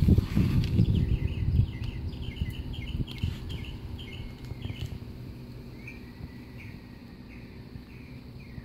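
A songbird singing: runs of short, quick chirps repeated several times a second, pausing briefly and starting a new run near the end. Under it, a low rumbling handling noise is loudest in the first couple of seconds, then fades.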